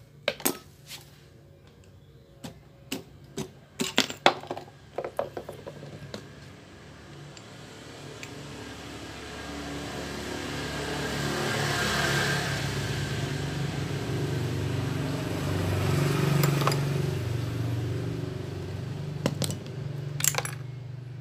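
Metal tools and parts clinking and knocking several times during motorcycle engine disassembly. Then a steady engine-like hum swells up over several seconds and fades, with a couple more sharp clinks near the end.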